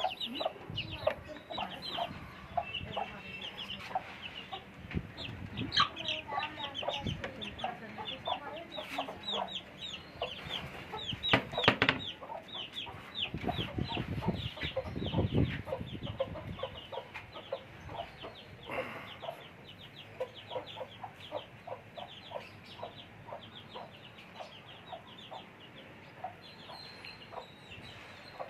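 Aseel chickens at feed: chicks peeping in a constant run of short high calls, with clucking from the fowl. There are louder low rustling bumps about twelve seconds in and again around fifteen seconds.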